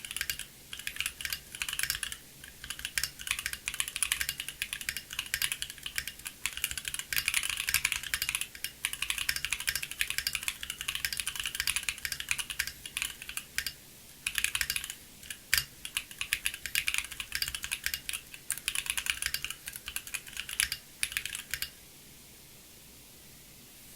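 Continuous fast typing on a Bakeneko60 mechanical keyboard with stock Gateron Baby Raccoon linear switches on an FR4 plate, with lubed Cherry clip-in stabilizers and Cherry-profile keycaps, the case filled with polyfil; dense, uneven clacks with a few louder single strikes, a board known for its hollow ping. The typing stops abruptly near the end.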